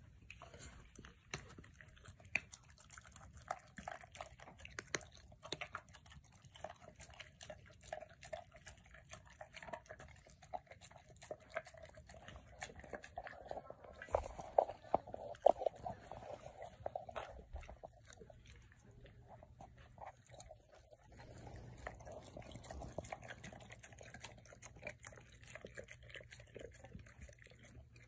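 A Cane Corso and a cat eating wet food from a stainless steel bowl: chewing and biting, with many sharp clicks that are loudest about halfway through.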